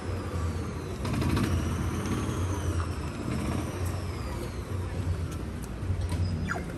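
Road traffic: a vehicle passing with a steady low rumble and a thin high whine that slides down, rises again and falls away.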